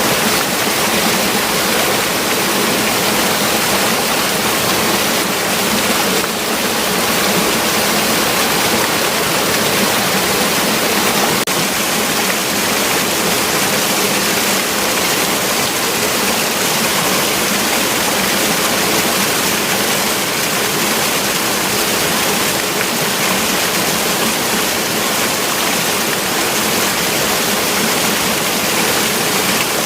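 Fast-flowing river water rushing steadily, an even, unbroken roar of running water.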